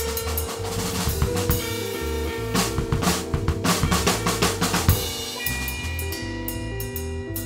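Instrumental background music led by a drum kit over a bass line and held chords, with a busy drum fill about halfway through.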